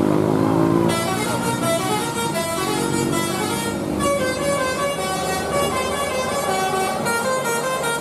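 Tour bus's telolet 'basuri' multi-trumpet musical air horn playing a quick tune of stepped notes from about a second in. Under it the bus's engine rises in pitch during the first second.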